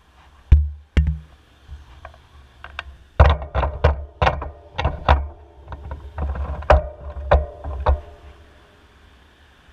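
Handlebar-mounted action camera knocking and rattling in its mount as the bicycle jolts over the road: a run of sharp knocks with low thumps, thickest in the middle and dying away near the end.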